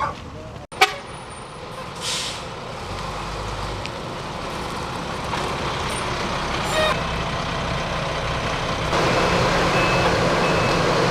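Yellow school bus's diesel engine running, with a sharp click under a second in and a short hiss about two seconds in; near the end the engine grows louder and a row of short, evenly spaced high beeps begins.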